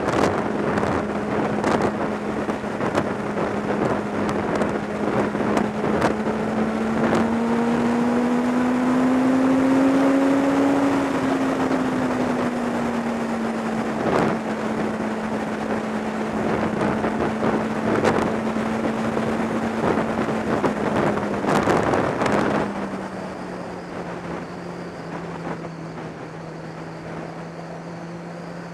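Kawasaki ZX10R's inline-four engine at a steady cruise, with wind gusting on the microphone. The engine note rises a little about a third of the way in and settles back, then drops lower and quieter about three-quarters of the way through as the bike eases off.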